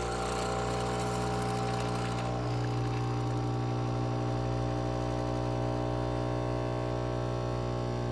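Nespresso Lattissima Pro espresso machine's pump running with a steady buzzing hum.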